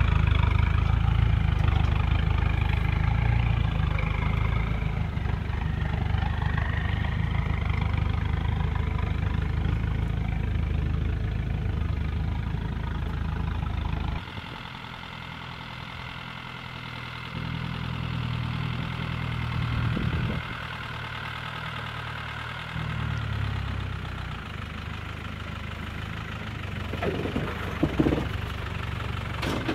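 Land Rover Defender engine running at low revs as the 4x4 crawls over a rutted dirt track, louder in the first half and dropping suddenly in level about halfway, with a few knocks near the end.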